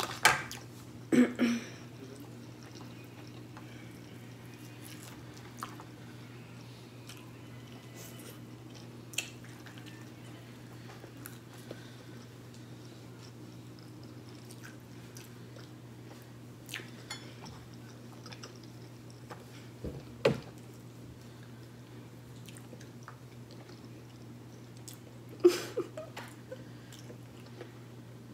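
A person chewing and eating pork chop and rice close to the microphone, with scattered small clicks and a few louder clatters of a fork against the plate, over a steady low hum. The louder clatters come near the start, about twenty seconds in, and again a few seconds before the end.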